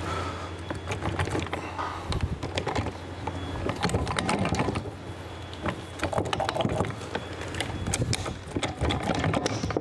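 Steel gears, shafts and shift forks of a ProGator transmission gear cluster clinking and knocking against each other and the case as the cluster is worked loose and pulled out, in irregular metallic clicks.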